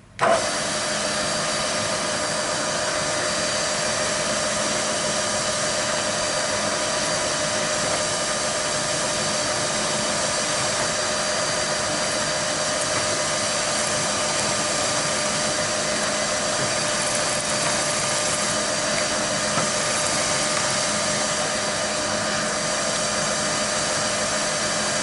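Milling machine spindle starting abruptly and running with a steady whine while its cutter machines a brass sphere held in a fixture.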